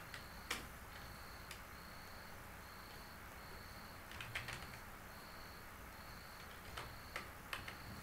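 Computer keyboard keystrokes, faint and scattered: a few single clicks and a short cluster of them, as words are typed one by one. Behind them a faint, high, short chirp repeats evenly about every 0.8 seconds.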